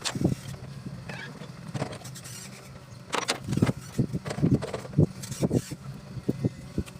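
An engine running steadily at idle, with irregular metallic clanks and knocks over it.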